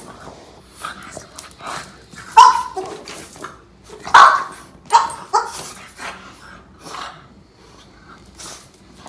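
Boston terrier giving a string of short, strange huffing barks ('fugah!'), the gruff, awkward barking of a dog that rarely barks. The loudest come about two and a half and four seconds in, with two more just after.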